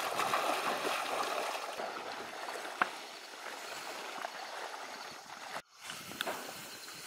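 Chest waders sloshing through shallow marsh water, the splashing steps slowly fading as the wader moves away. A single sharp click a little under three seconds in, and the sound cuts out for a moment about five and a half seconds in.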